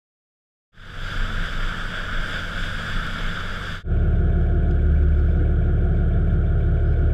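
A boat's engine running with a steady low rumble, loudest from about four seconds in. Before that, starting about a second in, a hissier rushing sound with a weaker rumble under it.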